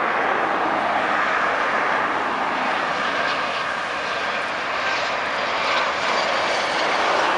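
Boeing 737-400's CFM56-3 turbofan engines on final approach, a steady jet engine noise as the airliner comes in low with its gear down.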